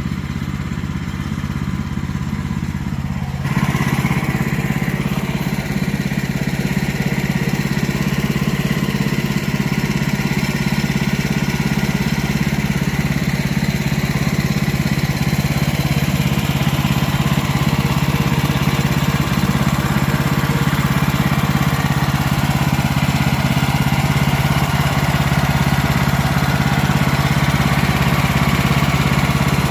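Small gas engine of a Woodland Mills bandsaw sawmill running steadily. About three and a half seconds in it gets louder and a steady hiss joins it, as the band blade works through white oak.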